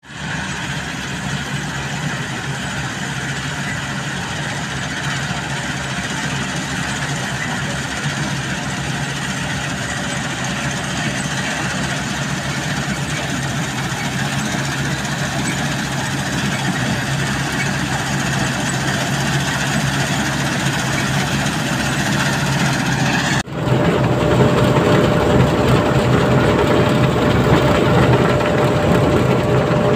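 CLAAS Crop Tiger 40 combine harvester running steadily at work harvesting mustard, its engine and threshing machinery making a continuous hum. About three-quarters of the way through the sound cuts abruptly to a louder, closer run of the machine with a steady whine, as the unloading auger discharges seed.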